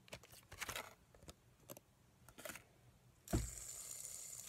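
Light crinkling and small clicks of a fidget spinner's plastic packaging being handled. About three seconds in there is a thump, then a steady high whir as the fidget spinner spins on its bearing in the hand.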